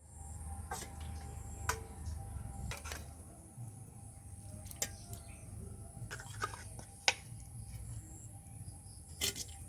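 Occasional sharp clinks of kitchen utensils over a low steady rumble.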